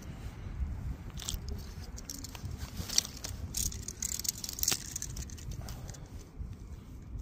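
Handling noise from landing a small hooked fish and working a plastic fish-grip tool: scattered clicks and rustles, the sharpest about three seconds in, over a steady low rumble.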